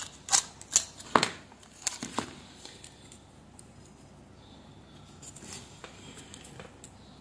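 Aluminium foil tape crinkling and crackling as fingers press and fold it down over a circuit board. A quick cluster of sharp crackles in the first two seconds, then softer, sparser crinkling.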